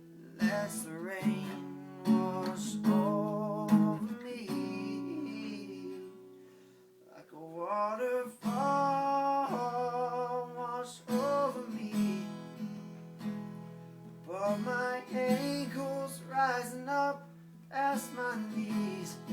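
A song: strummed acoustic guitar with a voice singing over it, dipping quieter for a moment about six seconds in.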